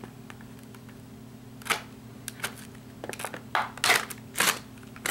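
Stiff plastic blister packaging crackling and snapping in short irregular bursts as a knife is pried out of it, starting after about a second and a half of quiet.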